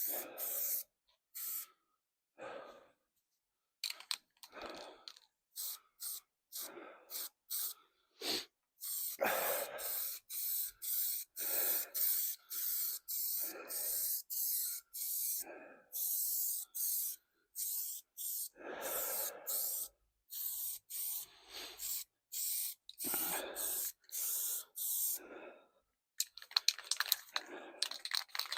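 Aerosol can of high build primer spraying in many short hissing bursts with brief gaps between, with breathing heard alongside. Near the end, quick dense rattling, like the can's mixing ball being shaken.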